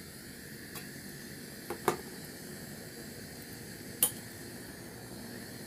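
Bulin gas camping stove's mesh burner running with a steady low hiss, freshly lit. Two short metallic clinks of cookware being handled, about two seconds in and a louder one about four seconds in.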